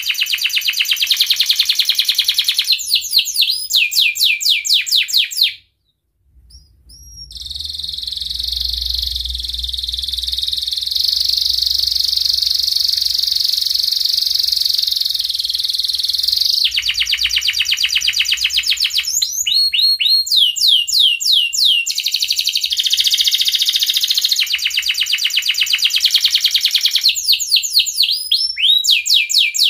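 Domestic canary in breeding condition singing: fast trills of repeated chirping notes, then after a brief pause a long unbroken rolling trill of about nine seconds, followed by more rapid trills and sweeping notes.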